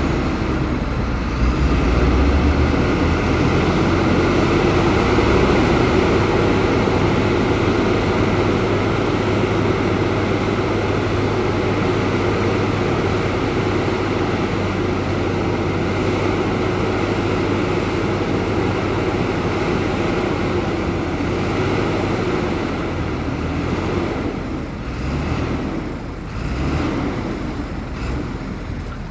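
Heavy earthmoving machine's diesel engine running steadily under load, its sound shifting and easing a little near the end.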